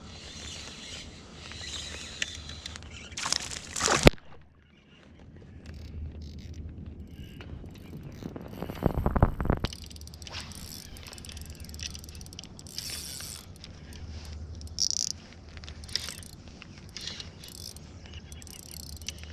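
Spinning fishing reel being cranked while a fish is played on the line, its gears and drag clicking. There is a sharp, loud knock about four seconds in and a louder burst of noise around nine seconds in.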